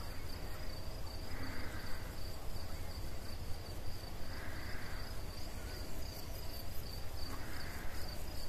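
Crickets trilling steadily in meadow grass: one continuous high-pitched, finely pulsing trill. A soft hiss swells and fades about every three seconds.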